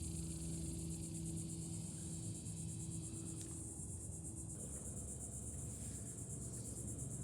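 A steady, rapidly pulsing high insect trill, like crickets, with a faint low hum underneath that fades out about three to four seconds in.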